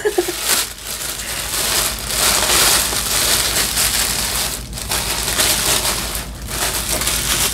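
Clear plastic bag crinkling and rustling steadily as it is worked off a lamp by hand, with a couple of brief pauses.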